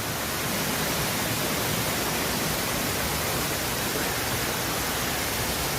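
A waterfall's falling water making a steady, even rushing noise.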